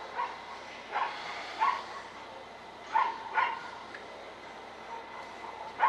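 A dog yapping in short, irregular barks, about six of them, over a faint steady hiss.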